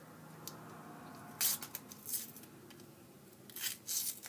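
A chocolate bar wrapper being torn open and crinkled, in short rustling bursts about a second and a half in and again near the end.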